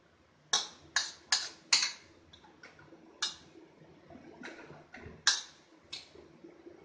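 Metal spatula knocking and scraping against a steel wok while stirring: four quick sharp knocks, a stretch of softer scraping, then two more knocks.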